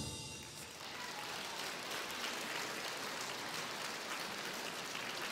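Audience applause in a concert hall, even and steady, rising in just after the last chord of the wind orchestra dies away in the first moment.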